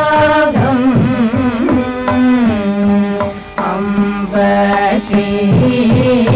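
Carnatic vocal singing, the voice sliding and bending between notes in ornamented phrases and holding a long note in the middle, accompanied by mridangam strokes.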